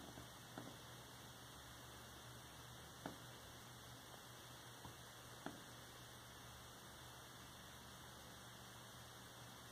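Near silence: a steady low hum and hiss of room tone, with three faint clicks in the first half.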